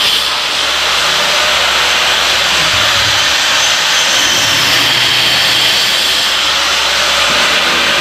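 Electric angle grinder cutting through a concrete hollow block, running steadily with a loud, gritty hiss and a faint high whine.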